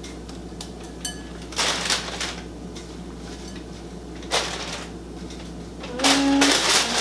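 Spinach leaves and their plastic produce container rustling as the greens are handled into a salad bowl, in three short bursts over a steady low hum.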